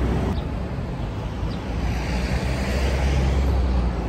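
Low, steady vehicle rumble that grows stronger about two seconds in.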